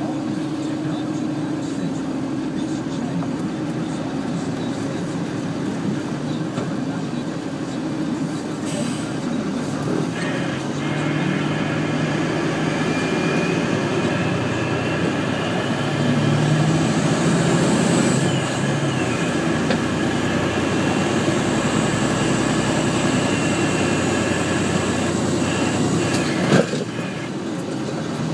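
Heavy diesel machinery running steadily, getting louder for a few seconds in the middle, with a sharp knock near the end.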